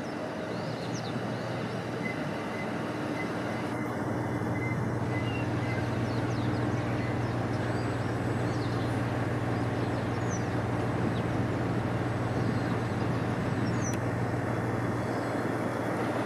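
A train running with a steady low hum over a noisy rumble, growing a little louder about four seconds in, with a few faint bird chirps above it.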